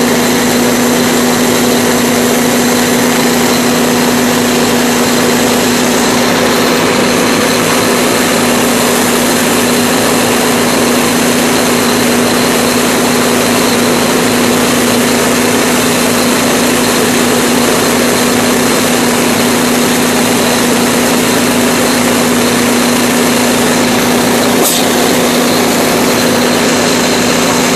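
Fire apparatus engine and pump running steadily while supplying a hose line: a constant drone with a hiss over it.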